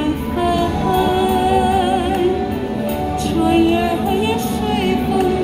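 A woman singing a slow song into a handheld microphone over accompanying music, holding long notes that glide between pitches.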